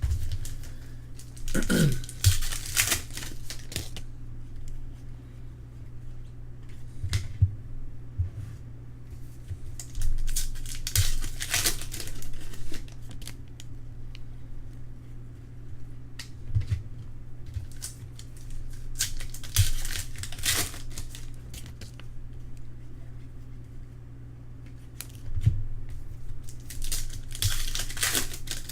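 Prizm trading-card pack wrappers being torn open and crinkled in four separate bursts, with light clicks and taps of cards being handled between them. A steady low hum runs underneath.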